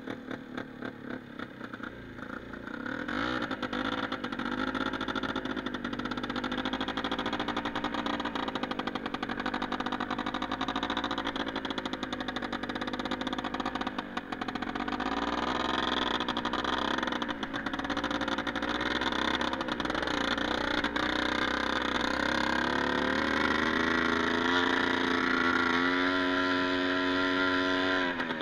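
Quad bike (ATV) engine running as it is ridden over snow, its pitch rising and falling with the throttle. It runs quieter for the first few seconds, then louder, and climbs again near the end.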